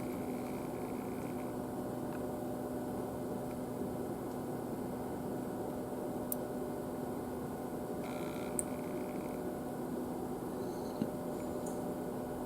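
Steady hum and room noise, with a few faint ticks about six, eight and a half and eleven seconds in.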